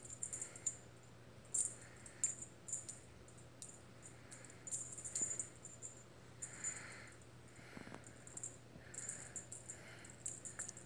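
A dangling cat toy jingling in short, irregular bursts of light, high clicks as a kitten bats at it.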